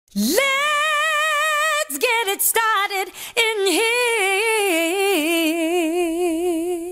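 An unaccompanied female voice singing long held notes with wide vibrato, sliding up into the first note, with a few short notes in the middle.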